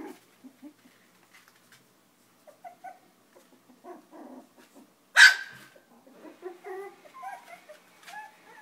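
Five-week-old Chinese Crested puppies playing: small grunts and growls, then one sharp, high bark about five seconds in, the loudest sound, followed by a run of short wavering yips and whimpers.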